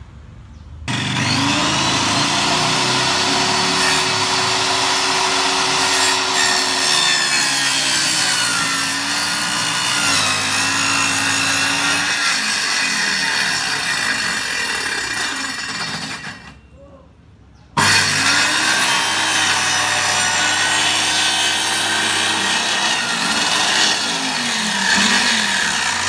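RYU corded circular saw cutting through a plywood board, its motor whine sagging in pitch and recovering as the blade loads up in the cut. It starts about a second in, stops around two-thirds of the way through, and starts again a second later.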